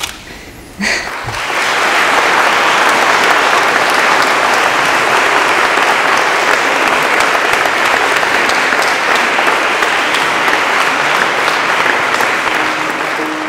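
A crowd of wedding guests applauding. It starts about a second in, holds steady and eases off near the end.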